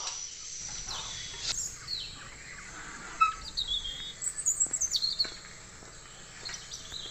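Small birds chirping, with a busy run of quick, high calls between about three and five seconds in.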